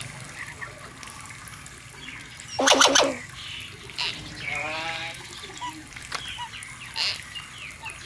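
Two short animal calls, the louder about three seconds in and a wavering one about five seconds in, over a faint background with a few light clicks.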